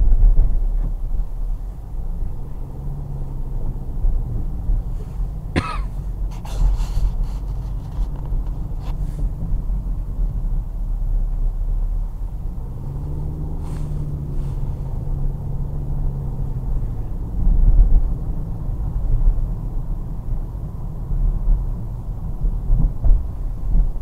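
Car driving: a steady low rumble of engine and road, the engine's note swelling and gliding as the car speeds up twice. A few short sharp noises cut through, the clearest about six and fourteen seconds in.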